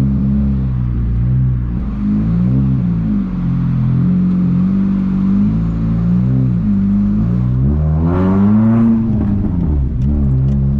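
VW Gol 1.0 8V four-cylinder engine running through a straight-through exhaust with a 4-inch HKS muffler, its note rising and falling as it is driven at low speed. About eight seconds in, the pitch climbs with a rev and then drops back.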